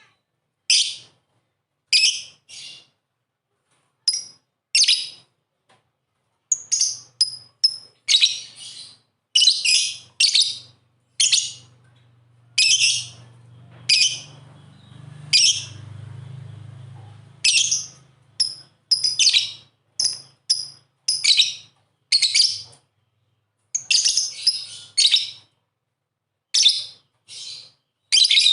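Lovebird chirping: short, shrill, high-pitched calls in quick runs of several at a time, with short pauses between runs. A faint low hum sits under the calls for a few seconds in the middle.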